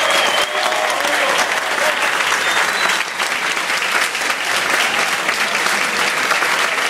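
Audience applauding, a dense, even clapping, with a few voices calling out in about the first second.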